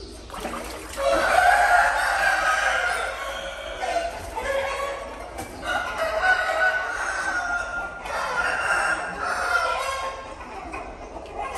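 Rooster crowing: several long crows one after another, each held for about two seconds.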